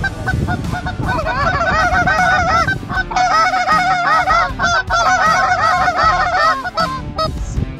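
Geese honking, many rapid calls overlapping in a dense chorus that is strongest from about a second in until near the end, over a low rumble of wind.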